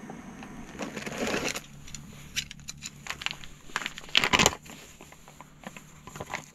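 Foil food pouch crinkling and rustling as it is handled and opened, with a louder burst of crinkling about four seconds in.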